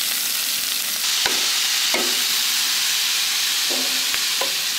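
Sliced bell peppers and onion sizzling in a hot cast-iron skillet, a steady frying hiss. A few sharp clicks come from the stirring utensil against the pan.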